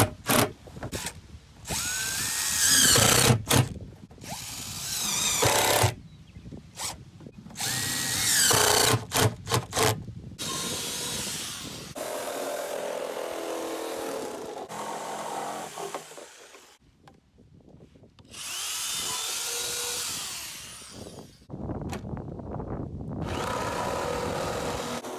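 A DeWalt cordless drill run in short bursts, its motor pitch rising and falling with each pull of the trigger. Then, about halfway through, a corded jigsaw cuts through the wall of a plastic 55-gallon drum in long steady runs, stopping briefly once.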